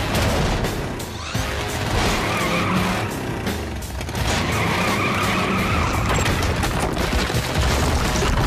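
Cartoon sound effects of a big-wheeled battle vehicle's engine running hard and its wheels spinning and grinding against rock, with a high screeching whine about two seconds in and again from about four to six seconds in, over action music.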